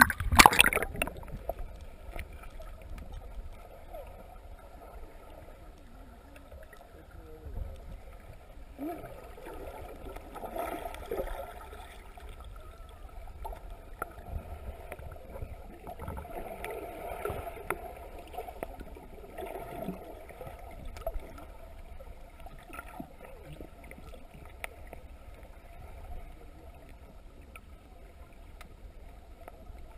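A splash as the camera plunges under the water, then the muffled sound of water moving around the submerged camera housing, with scattered bubbling and swishing.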